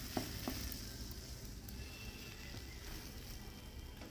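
Hot mustard oil sizzling steadily in a kadai after a rolled egg omelette has been fried in it, with a few light clicks of a metal spatula against the pan in the first half second.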